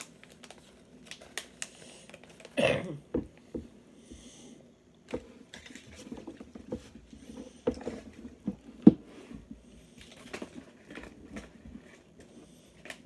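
Scattered small clicks and taps of food being handled and cut at a wooden table: a knife working through a soft snack cake and knocking lightly on the tabletop, with one longer, louder noise between two and three seconds in.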